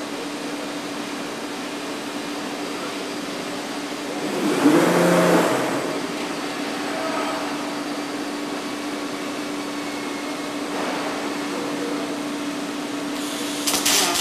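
Steady hum and hiss of a robotic arc-welding cell's machinery, with a louder whooshing surge and a brief wavering tone about four seconds in. Near the end the welding arc strikes and crackles as the robot starts welding the steel pipe seam.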